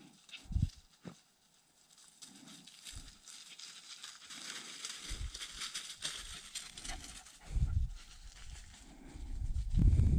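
Dogs rustling and padding about in dry leaves and gravel, with a couple of short thumps in the first second and wind buffeting the microphone near the end.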